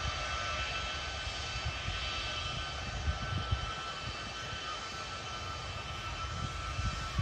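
Boeing C-17A Globemaster III's turbofan engines running: a steady whine over an uneven low rumble.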